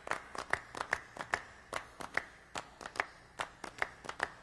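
Hand claps: quick, sharp, unevenly spaced claps, about four or five a second, with little else under them.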